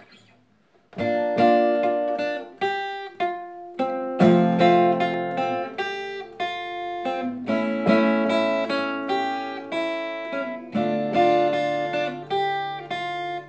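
Solo acoustic guitar playing an instrumental intro, starting about a second in: picked chords and single notes in a steady rhythm, each ringing out before the next.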